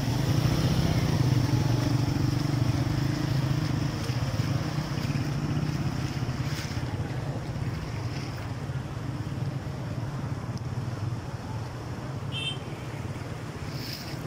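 Motorcycle engine running steadily at low speed while riding through floodwater, over a continuous wash of water noise.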